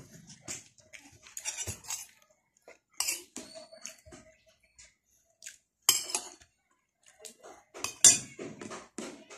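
Cutlery clinking and scraping against a plate while eating, with a few sharp clinks that ring briefly, the loudest about eight seconds in.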